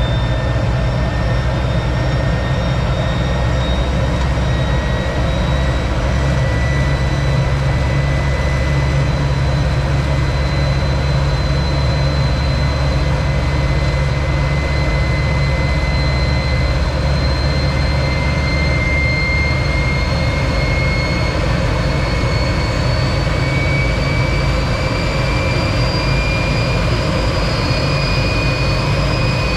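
T-33 jet trainer's turbojet engine running steadily: a constant low rumble under a high whine that climbs slowly in pitch.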